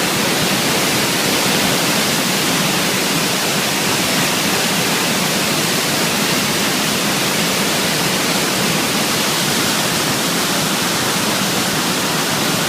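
Waterfall swollen by typhoon rain pouring down hard, a loud, steady rush of water.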